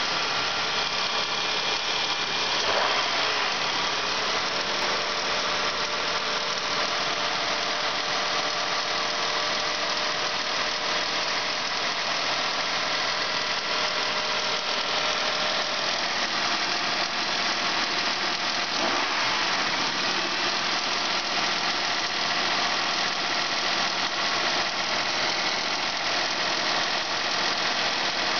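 1999 Honda Accord's 3.0-litre V6 engine idling steadily, heard from close over the open engine bay.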